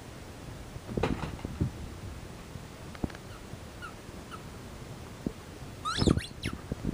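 Australian shepherd puppy at play: a thump about a second in, a couple of short high whimpers, then a high rising yelp over thumps and knocks near the end.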